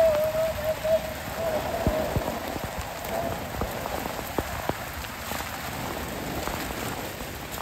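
Rain falling on wet brick pavement: a steady hiss with scattered sharp drop ticks.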